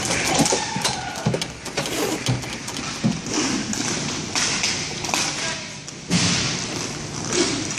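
Inline hockey play: sticks and puck tapping and thudding on the plastic rink floor and boards, with one harder thud about six seconds in.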